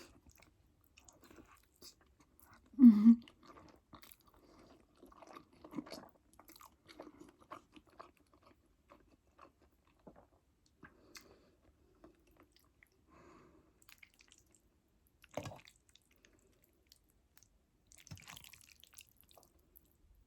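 A person chewing a mouthful of fettuccine Alfredo close to the microphone: soft wet chewing with small mouth clicks. There is one brief louder sound about three seconds in, a sharp click later on and a short hiss near the end.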